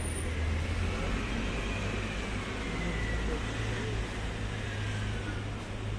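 Steady city traffic noise with a low rumble, and a faint high tone that slowly falls in pitch through the middle.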